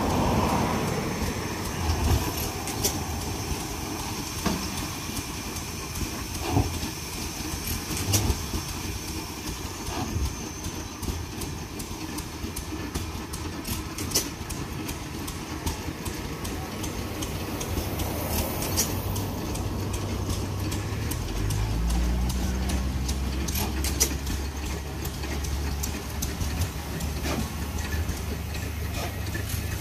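300 hp Corliss stationary steam engine running, with steam hissing and irregular sharp clicks and knocks from its moving parts. About two-thirds of the way in, a low steady engine drone joins in.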